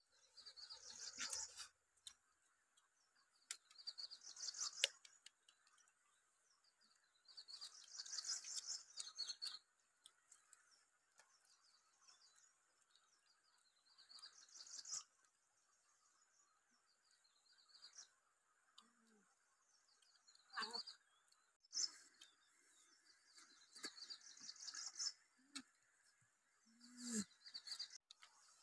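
A bird singing short high phrases of about a second or two, repeated every few seconds, with a few faint clicks in between.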